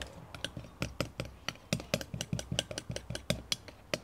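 A spoon stirring slime in a small glass bowl, clinking and tapping against the glass in quick irregular strokes, several a second.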